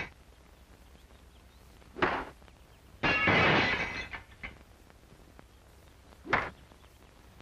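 A sharp crack, then about a second later a louder crash of a window pane shattering that lasts about a second; another short crack comes near the end.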